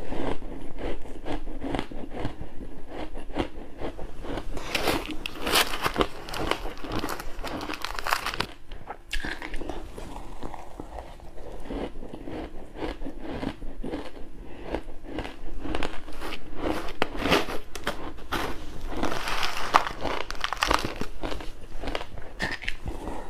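A person biting and chewing pink ice close to the microphone: continuous crunching and cracking, with heavier bursts of crunching about a quarter of the way in and again near the end.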